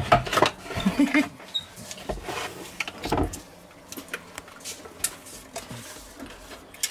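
Scattered clicks, knocks and scrapes of a spatula against a stainless-steel Thermomix mixing bowl as pineapple purée is scraped out into a plastic measuring jug, with one louder knock a little past three seconds.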